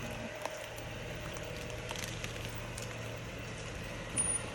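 Car running steadily at low speed with a low hum, with a few faint clicks.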